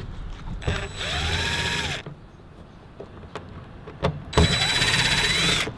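DeWalt cordless impact driver running in two bursts of about a second each, its motor whine rising and then falling in pitch each time. It is backing out the bolts that hold a duck-bill spoiler to the car's trunk lid.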